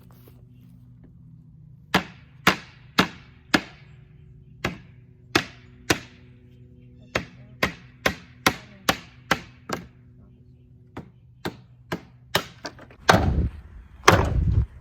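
A mallet knocking on wooden pallet planks: runs of sharp whacks, about two a second, trying to drive the boards off the stringers. Near the end comes a louder, longer, rougher noise of wood being worked loose or splitting.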